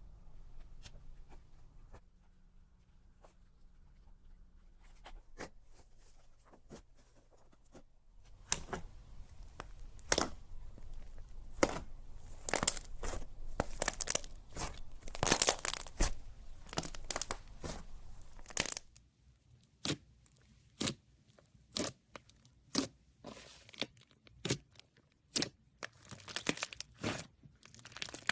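Slime being pressed and stretched by hand, crackling and popping. Scattered clicks at first, a dense crackle about a third of the way in, then separate pops about once a second toward the end.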